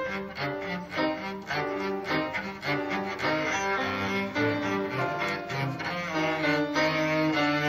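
Live classical music on bowed string instruments, with a cello-range line playing a quick succession of notes.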